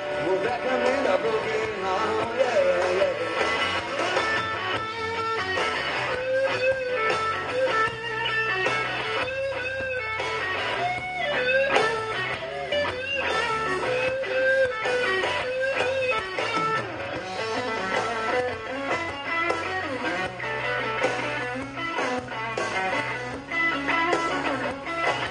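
Live blues-rock band playing an instrumental break: an electric guitar lead with bending notes over bass guitar and drums.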